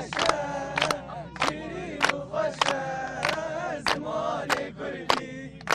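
A group of people singing or chanting together while clapping their hands in unison, a sharp clap roughly every 0.6 seconds keeping a steady beat under the voices.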